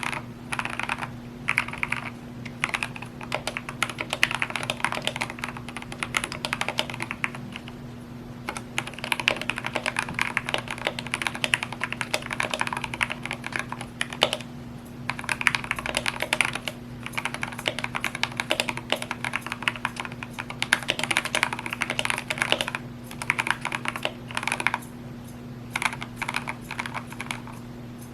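Typing on a GMMK 2 65% mechanical keyboard with lubed Gateron Red linear switches: fast runs of keystrokes with brief pauses between bursts. A steady low hum lies underneath.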